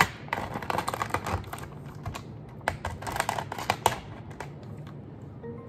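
Plastic wrap being picked at and peeled off a takeout tteokbokki tray, crinkling in two spells of dense crackling, about a second in and again about three seconds in.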